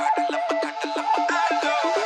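Background music: a fast, repeating electronic synth pattern with a melody over it.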